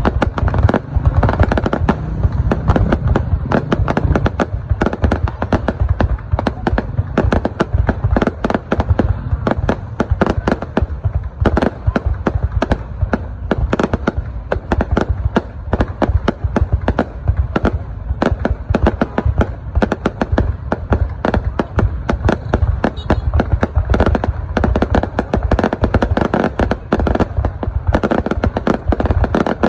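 Fireworks display going off in a rapid, unbroken stream of bangs and crackles, several a second.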